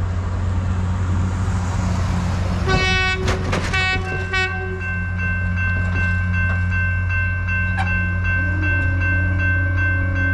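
Train horn giving several short blasts a few seconds in, over the steady low rumble of the passenger train's locomotive. A grade-crossing warning bell then starts up and keeps ringing with an even, repeating ring.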